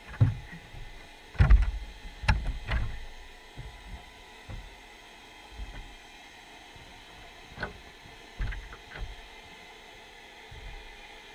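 Irregular dull knocks and bumps heard through an underwater camera housing inside a wire-mesh fish trap, over a faint steady hiss. The knocks come in a cluster in the first few seconds and a few more near the end.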